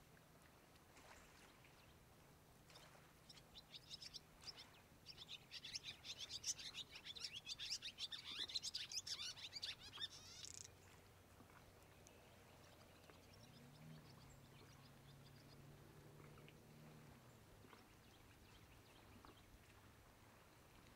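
A bird's rapid, chattering chirps build up in loudness from about three seconds in and stop abruptly about ten seconds in. Underneath is a faint steady low hum that rises in pitch for a few seconds later on.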